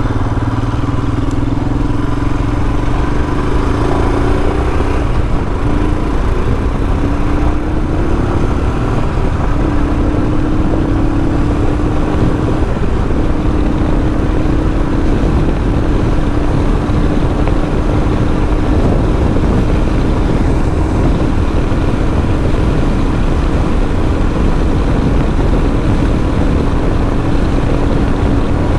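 Royal Enfield Himalayan's single-cylinder engine pulling away and accelerating up through the gears, its pitch climbing in steps over the first dozen seconds. It then holds a steady cruise.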